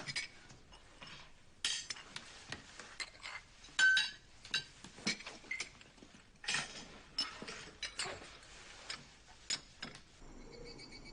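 Dishes, glasses and cutlery clinking as they are cleared away, in irregular sharp clinks with a louder knock about four seconds in.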